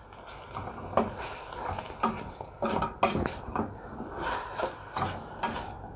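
Wooden spoon stirring chunks of raw beef in a stainless steel pot: irregular knocks and scrapes of wood against the metal.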